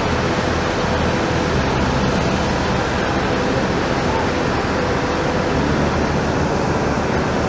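Steady loud rushing roar of fast-flowing flash-flood water.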